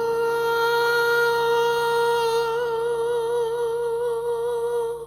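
A singer holding one long note on "I'm" in a gospel worship song, steady at first and wavering slightly toward the end, then cutting off just before the next word.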